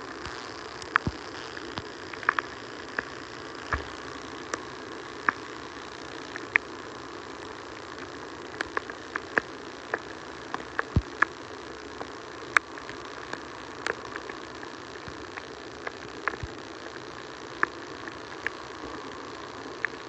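Rain on a wet phone microphone: a steady hiss with many irregular sharp pops and crackles.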